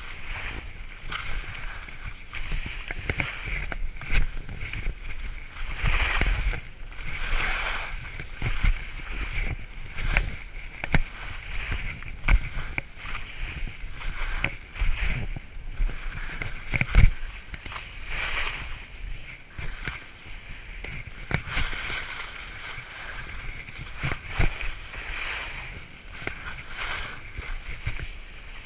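Skis scraping and hissing through wet spring slush as they run downhill, the hiss swelling and fading with each turn, with scattered knocks and thumps over bumps in the snow.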